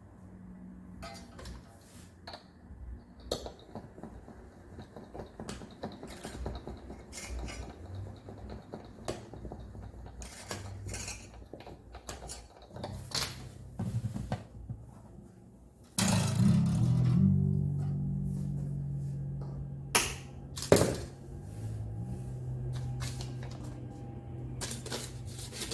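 Taylor 214CE steel-string acoustic guitar being handled with small clicks and knocks of metal parts and strings, then, about two-thirds through, a string is plucked hard and rings while its pitch steps as the tuner is turned: the guitar being tuned up after its neck-joint setup.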